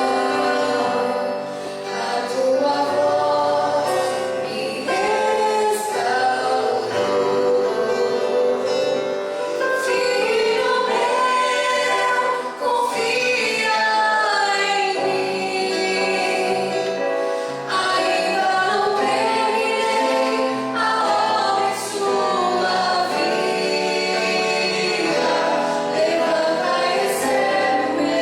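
Gospel worship song: a group of voices singing together with instrumental accompaniment.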